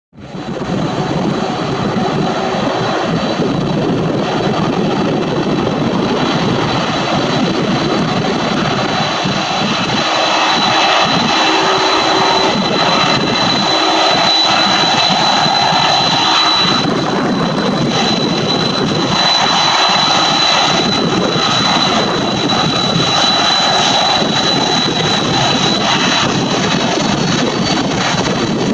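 Jet airliner engines at takeoff thrust: a loud, steady jet noise with a high whine running through it, growing slightly louder in the middle.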